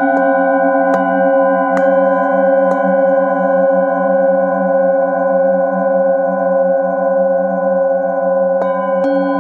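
Metal singing bowls struck with a padded mallet: four strikes in the first three seconds, then the overlapping tones ring on with a slow wavering pulse, and two more strikes near the end.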